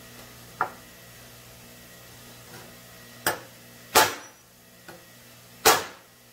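Hammer striking bent engine push rods laid on a wooden block, knocking down the high spots to straighten them. There are five sharp blows, spaced unevenly; the loudest come about four seconds in and just before the end.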